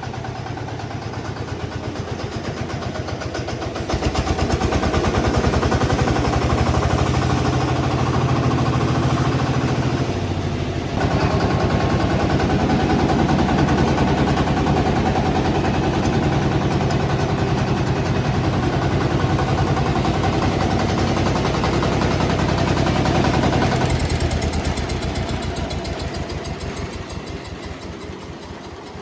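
Engine of a large horizontal bandsaw sawmill running steadily. It steps up in loudness about four seconds in, dips briefly around ten seconds, then fades out gradually over the last few seconds.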